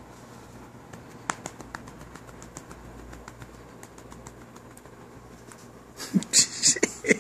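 A hand stroking a long-haired cat's fur right against the phone's microphone: a run of faint clicks, then about a second of loud rubbing and handling noise near the end.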